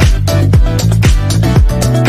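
Background music: an upbeat dance-style track with a steady kick-drum beat, about two beats a second.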